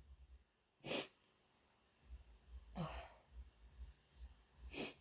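A woman breathing between sneezes: three short, soft breaths, about a second in, in the middle with a slight voiced sigh, and near the end.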